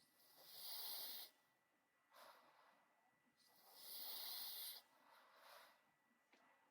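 A terrier breathing hard and snorting through its nose: two long, hissy breaths, each followed by a shorter, fainter one.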